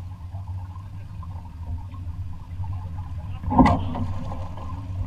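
Steady low rush of wind and water aboard a sailing yacht under way, with one sharp knock about three and a half seconds in, the loudest sound.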